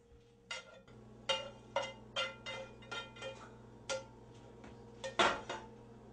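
A spatula clinking and scraping against a frying pan and a plate as scrambled eggs are served out: about a dozen sharp, short-ringing clinks in an uneven run, the loudest just after five seconds in.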